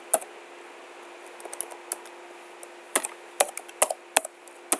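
Computer keyboard being typed on: irregular key clicks, a few scattered ones and then a quicker cluster about three seconds in.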